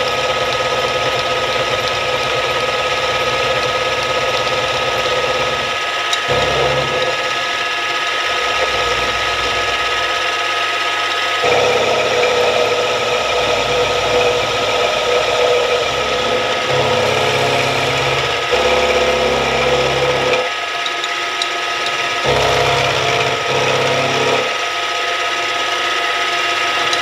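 Milling machine spindle running with a steady whine while an end mill cuts down the end of a taper plug seated in a rotary table. The cutting noise underneath shifts every few seconds as the cut bites and eases off.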